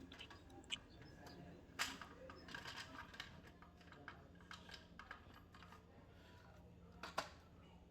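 Scattered light clicks and taps of hands-on work. The sharpest click comes about two seconds in and another near the end, over a faint low hum.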